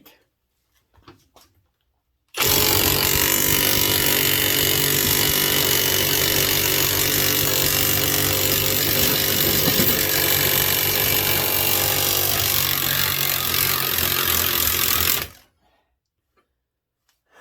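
Ryobi 18V One+ HP brushless 1/2-inch high-torque impact wrench hammering continuously on a 5/8-inch bolt for about thirteen seconds, then stopping suddenly, by which point the threads have stripped rather than the bolt breaking.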